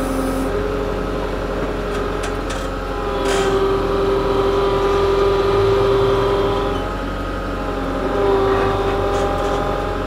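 KATO compact track loader's engine running under hydraulic load as it lifts and moves a stack of pine lumber on pallet forks. The engine note swells about three seconds in, eases off around seven seconds, and briefly rises again near the end.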